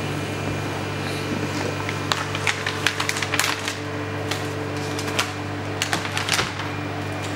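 A steady low hum with irregular sharp clicks and light taps between about two and six and a half seconds in.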